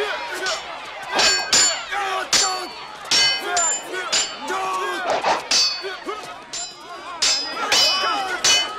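Swords clashing in a fight scene: a rapid series of sharp metal-on-metal strikes, each ringing briefly, with shouts and grunts between them.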